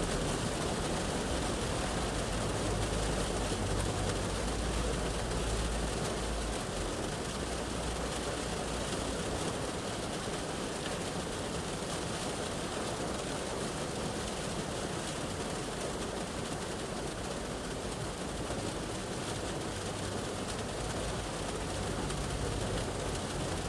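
Shower rain drumming steadily on a car's roof and windows, heard from inside the cabin. A low rumble of passing road traffic swells over the first few seconds and again near the end.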